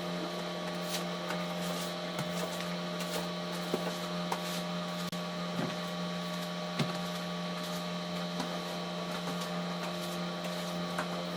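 Samsung Eco Bubble washing machine running a cotton wash: a steady motor hum at a constant pitch, with a few faint clicks.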